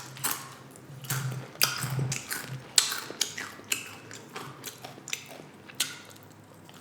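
Close-miked chewing of loaded nachos: crunchy tortilla chips breaking between the teeth, with irregular crunches and wet mouth clicks.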